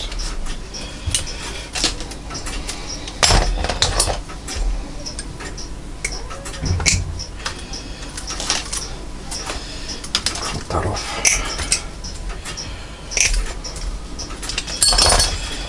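Scattered small metallic clicks, clinks and rustles of hands working on a brass grandfather clock movement as the old line is pulled off it.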